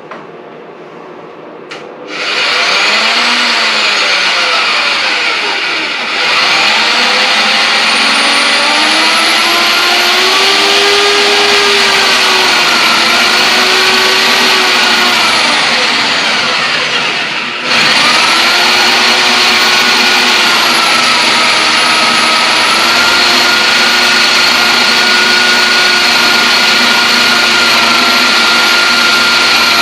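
Electric drill boring a hole into a solid oak slab, its motor pitch wavering as it bites under load. It starts about two seconds in, slows briefly about six seconds in, and nearly stops about eighteen seconds in before running on.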